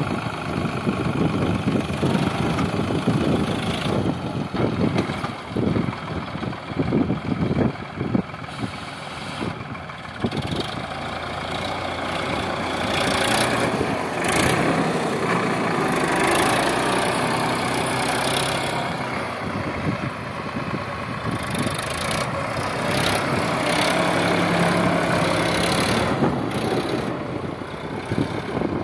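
Sonalika DI 745 III tractor's three-cylinder diesel engine running under load as it pulls a tine cultivator through dry soil. The sound is choppy and uneven in the first third, then settles into a steadier drone.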